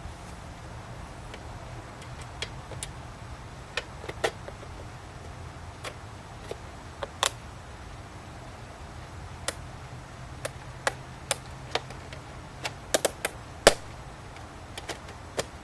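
Irregular sharp clicks and taps of stainless steel trim pieces being handled and slid into place around the glass and plexiglass insert of a bottle door, some in quick clusters and the loudest near the end. A low steady hum runs underneath.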